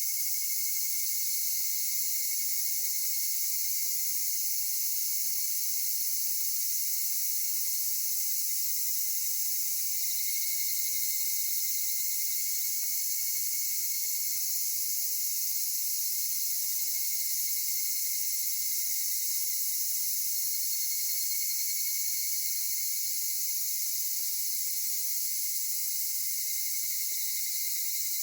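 A dense insect chorus: a steady high shrill that goes on without a break or change in loudness.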